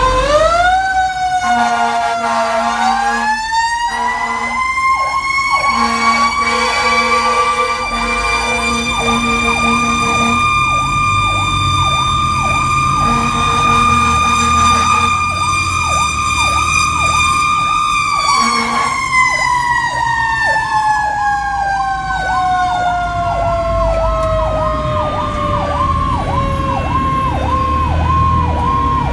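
Fire engine sirens heard from inside the cab: a siren winds up over the first few seconds, holds a high wail, then slowly winds down through the last third, while a second, electronic siren warbles about twice a second alongside. Short and longer horn blasts sound on and off during the first two-thirds.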